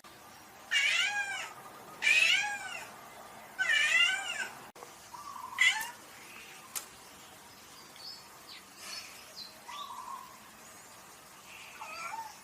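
Cat meowing: three loud, drawn-out meows in the first four seconds, each rising then falling in pitch. These are followed by a shorter meow, a sharp click, and softer, fainter mews later on.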